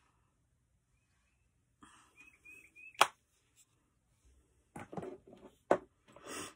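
A sharp click about three seconds in, the loudest sound, followed by a few quieter taps and a short rustle near the end: makeup items being handled. A few faint bird chirps come just before the click.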